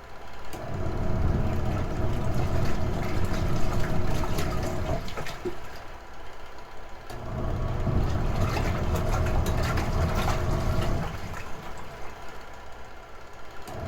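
Retro-style washing machine running its wash cycle: the motor drives the agitation in bursts of about four seconds, stopping for about two seconds between them, with a steady hum under each run.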